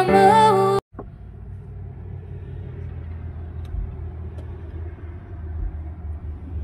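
Sung song with music cuts off abruptly just under a second in. It gives way to the low steady rumble of a car heard from inside the cabin.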